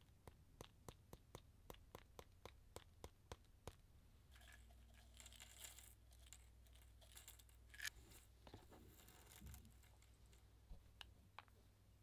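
Faint, light taps at about three a second as white dots are dabbed onto a thickly painted art-journal page, giving way a few seconds in to a soft crinkling rustle of loose metallic star sequins being handled. A few scattered light taps near the end as the stars are pressed onto the wet paint.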